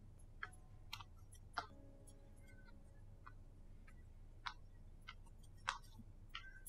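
Faint footsteps on a staircase: about nine sharp clicks at uneven intervals, half a second to a second apart, over near silence.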